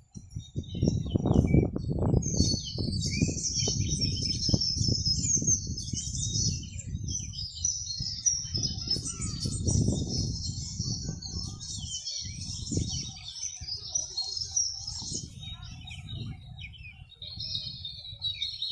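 A chorus of many small birds chirping and twittering continuously, over an uneven low rumble.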